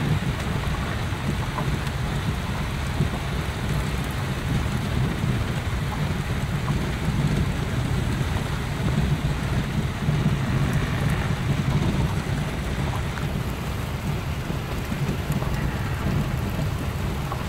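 Heavy tropical rain drumming steadily on the roof and windshield of a moving 4x4, heard from inside the cab over a low, steady rumble from the vehicle.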